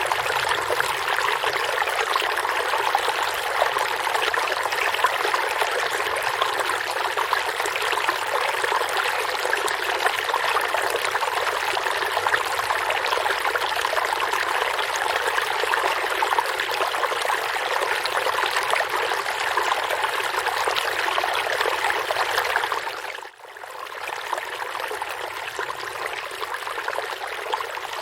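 Forest stream of water flowing and trickling steadily. About four-fifths of the way through, the sound drops out for a moment and comes back a little quieter.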